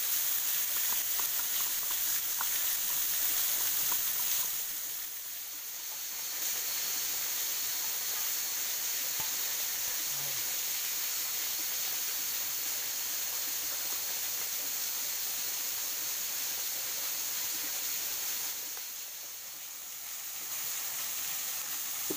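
Fish frying in hot oil in a wok over a wood fire: a steady sizzle that drops briefly twice, about five seconds in and again near the end.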